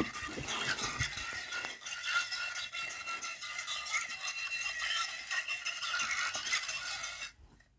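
Tinny music from a small speaker with a rattling, scraping sound over it, cutting off abruptly near the end.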